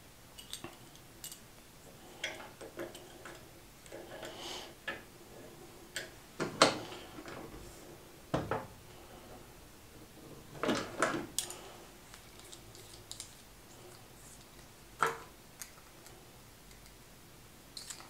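Clicks, taps and light metallic clinks of small pen-kit parts being handled and fitted together while a bolt-action pen is assembled. Sharp knocks come at irregular times, the loudest about six and a half seconds in, with more near eight and a half, eleven and fifteen seconds.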